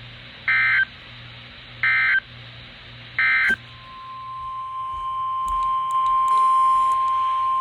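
Emergency Alert System broadcast on NOAA Weather Radio: three short bursts of SAME header data tones, then the steady 1050 Hz warning alarm tone from about three and a half seconds in, marking the start of a new severe thunderstorm warning.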